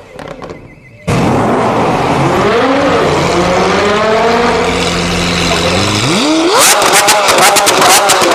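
Lamborghini Aventador's V12 engine running, then revved sharply about six seconds in and held at high revs with rapid crackling pops from the exhaust.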